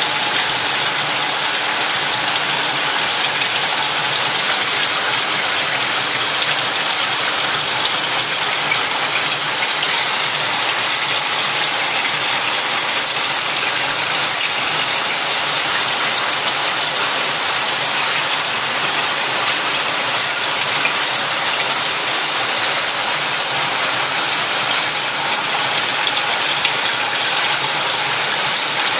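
Steady trickling, splashing hiss of running water from a reef aquarium's circulation and overflow plumbing.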